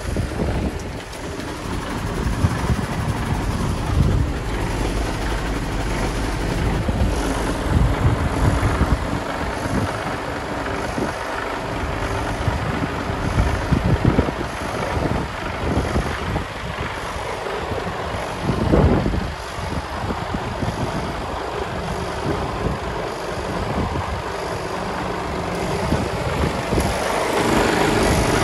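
A heavy truck's diesel engine idling with a steady low rumble.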